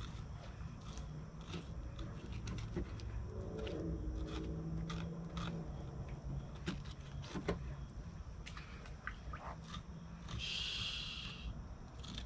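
Fillet knife slicing and scraping meat away from an alligator gar's skin: scattered small clicks and scrapes over a low steady hum, with a short hiss about ten and a half seconds in.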